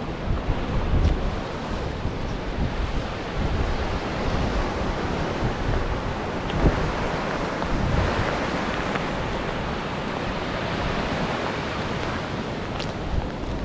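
Surf breaking and washing up on a beach, a steady rush of waves, with wind buffeting the microphone in low rumbles, heaviest in the first second or so.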